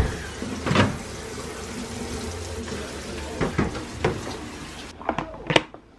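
Microwave oven that has just finished, its door opened and a plastic food container taken out: several clicks and knocks of the door and container over a steady hum and hiss that stops about five seconds in.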